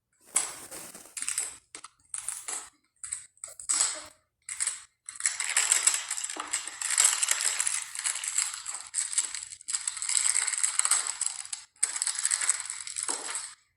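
Plastic packaging crinkling and being torn open by hand, in short irregular bursts at first and then longer continuous stretches of rustling with brief pauses.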